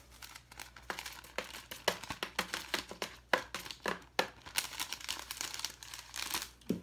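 Cellophane cookie bag crinkling in the hands as a few business cards are slid into it: an irregular run of sharp crackles.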